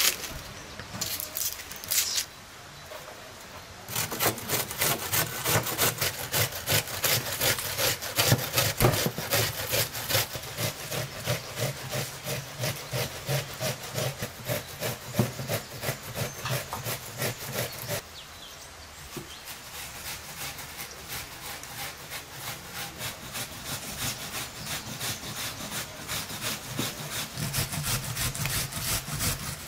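Rhythmic rasping strokes of food being prepared by hand, about three a second. They start about four seconds in, stop briefly past the middle, then carry on softer as raw beef is cut into chunks with a knife on a wooden board.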